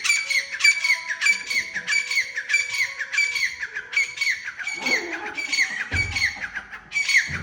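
A partridge calling over and over: a rapid series of short, harsh, pitched calls, about three a second.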